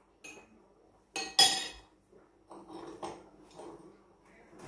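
Metal spoon clinking against a ceramic bowl of eggs being beaten: a small click near the start, two sharp ringing clinks about a second in, then softer knocks.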